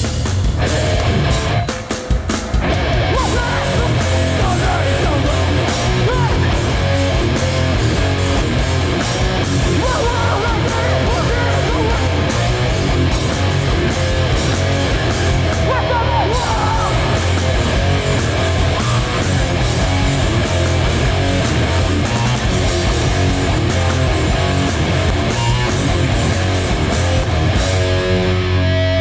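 Hardcore band playing live: loud distorted electric guitars, bass and drums in a dense, continuous wall of sound. The sound briefly drops about two seconds in, and near the end it moves into sustained, ringing guitar chords.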